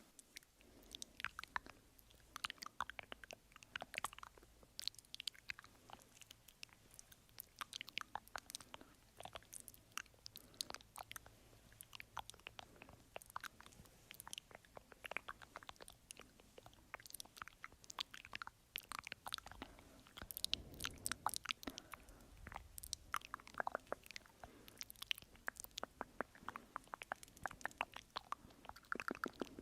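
Close-miked ASMR mouth sounds: faint, rapid, irregular wet clicks and smacks of tongue and lips.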